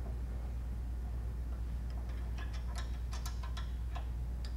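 Light clicks and ticks of metal parts on a Laguna bandsaw's blade guide assembly as its ceramic guides are tightened in place, scattered mostly through the second half, over a steady low hum.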